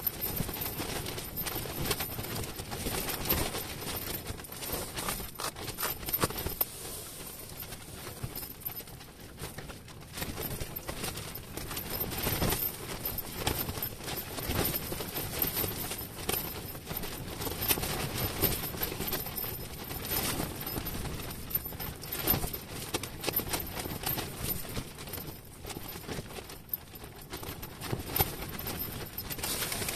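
Ice-fishing tent fabric buffeted by strong wind: a steady rushing with irregular flapping knocks and rattles throughout.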